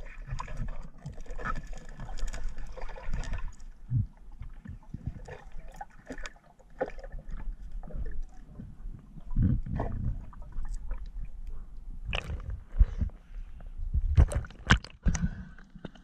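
Water sloshing and gurgling around a diver's camera, with scattered sharp clicks and knocks, a cluster of louder ones near the end.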